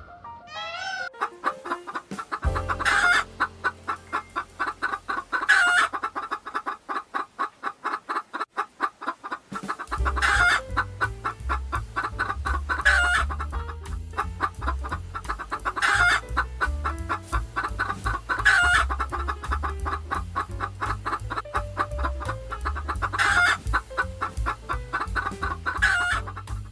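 Chickens clucking in a rapid run of short notes, with a louder call about every two and a half seconds. Background music with a low beat comes in about ten seconds in.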